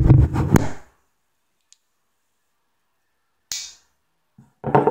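Handling noise from a phone camera being moved: a rumble with two sharp clicks in the first second. Then dead silence for about two and a half seconds, a click with a short hiss at about three and a half seconds, and a voice starting just before the end.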